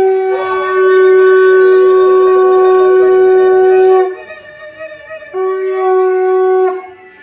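Conch shell (shankha) blown in two steady, held blasts on one unchanging note: the first lasts about four seconds, and a shorter second blast comes about five seconds in.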